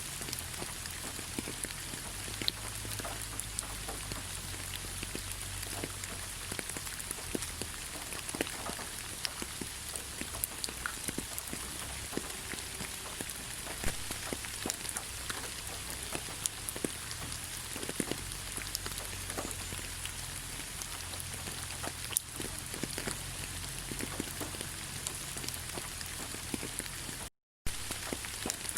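Steady rain: an even hiss with many individual drops ticking sharply on surfaces, over a low rumble. The sound cuts out completely for a split second near the end.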